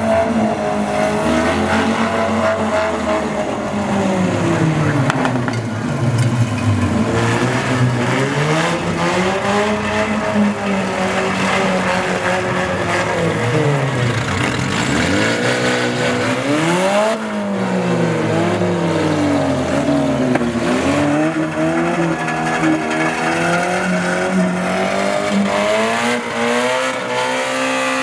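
Engines of wrecked demolition-derby cars revving up and falling back again and again as they push and ram each other, with occasional knocks of metal on metal.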